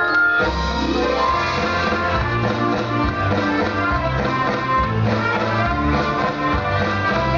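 Music from the light-and-sound show's sound system, with guitar and drums. A bass-heavy beat comes in about half a second in, after bell-like notes.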